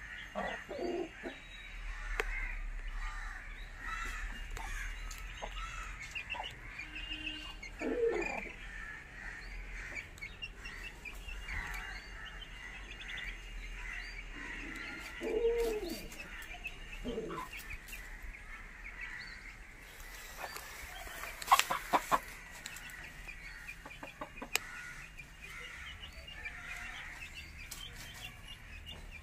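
Aseel chickens clucking now and then, short rising-and-falling calls a few seconds apart, over a constant high chirping of small birds. A quick cluster of sharp clicks comes about three-quarters of the way through.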